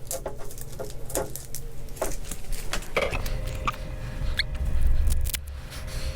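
Small clicks, taps and rustles of fabric and Velcro pieces being handled at a sewing machine. About three seconds in, a steady low hum with a faint tone comes on and continues.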